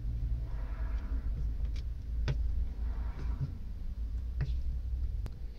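Flat-blade screwdriver turning a slotted screw into a vise's steel jaw plate: short scraping turns and about four sharp metallic clicks, over a low rumble.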